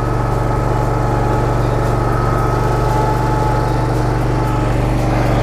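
Engine of a Toro Sand Pro field groomer running steadily, with a faint high whine over the engine note that fades out near the end.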